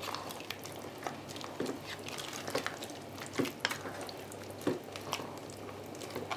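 A spoon stirring chicken pieces in a thick tomato and vegetable stew in a multicooker's inner bowl, with irregular soft clicks and knocks as it turns the pieces and meets the bowl.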